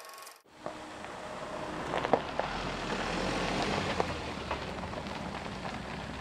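A minivan driving past on a dirt-and-gravel lane: its tyres crunch and pop on small stones over a low engine rumble. The sound grows louder as the van passes, then eases slightly as it pulls away.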